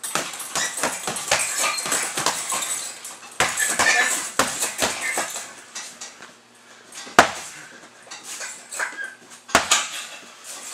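Boxing gloves hitting hanging heavy punching bags in quick, irregular flurries, with the chains the bags hang from clinking. One harder blow stands out about seven seconds in.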